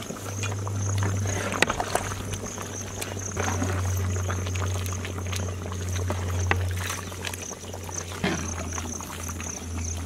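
Metal ladle scooping and pouring simmering fish curry in a large cooking pot, with scattered clinks and splashes. A steady low hum and a high, steady whine run beneath it.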